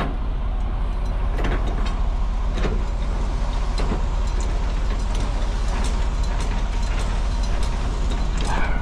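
Car driving, heard from inside the cabin: a steady low engine and road rumble with tyre noise, broken by a few faint clicks.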